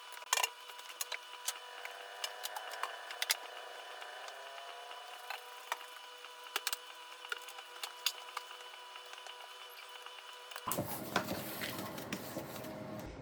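Light clicks and knocks of kitchen cleaning: things being handled and set down, over a faint steady whine. Near the end the sound turns into a fuller, louder rustling.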